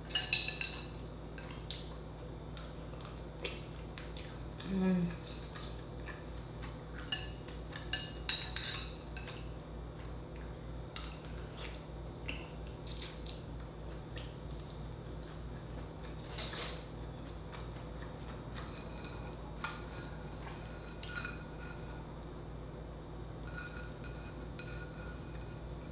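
Eating clams in garlic butter with the fingers: clam shells clicking against a glass bowl and against each other, with wet mouth sounds as the meat is sucked from the shells. Scattered clicks throughout, and a brief low hum about five seconds in.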